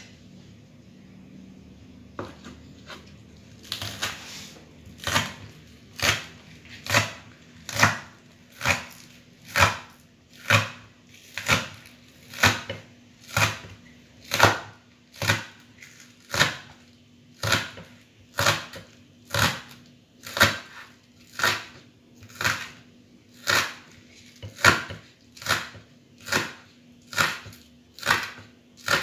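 A knife slicing spring onions against a wooden cutting board, a steady cut about once a second that begins a few seconds in.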